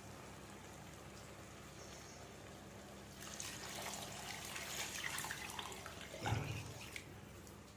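Water running and splashing for about four seconds, starting about three seconds in, with a single thump near the end.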